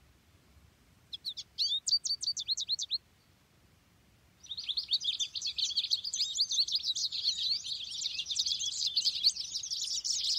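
American goldfinch song played back from a phone's speaker: a short run of quick, high chirps, then after a pause of about a second and a half a long, continuous twittering song.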